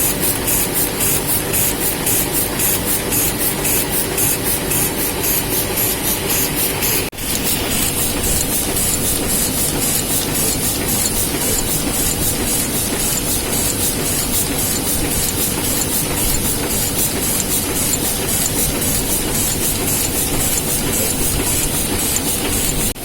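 Heidelberg Speedmaster SM72 six-colour perfecting offset press running in production: a steady hissing, clattering machine noise with a fast even beat of about three strokes a second. The sound drops out for an instant about seven seconds in.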